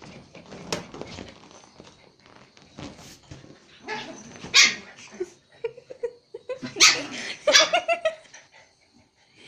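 Small dogs, a Japanese Spitz and a Pomeranian puppy, barking as they play: one sharp bark about halfway through, then a quick run of short barks a couple of seconds later.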